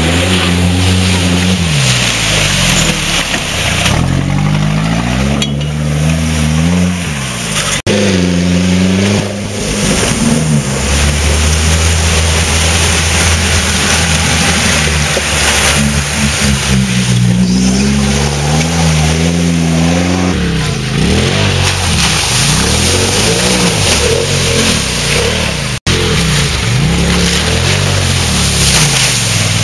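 Off-road vehicle engines revving hard, the pitch climbing and dropping again and again as the vehicles power through deep mud and water, with a steady rush of splashing. The sound breaks off abruptly about 8 seconds in and near the end as one run gives way to the next.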